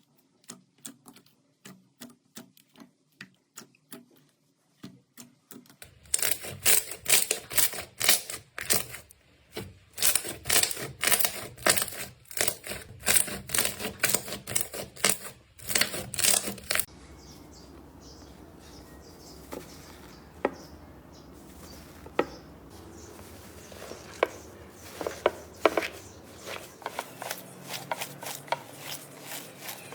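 Slime being pressed and squeezed by hand, giving a run of sharp sticky clicks and pops. They are faint at first, then loud and rapid for about ten seconds. After that come sparser clicks over a steady low hiss.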